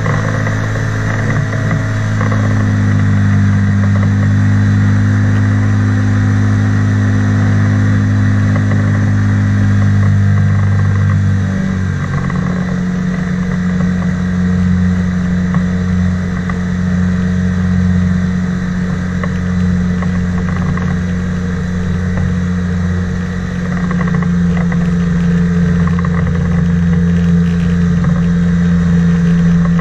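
Engine and pusher propeller of an ultralight flying-boat trike running steadily at high power as the craft skims across the water on its inflatable hull. The engine note shifts about twelve seconds in.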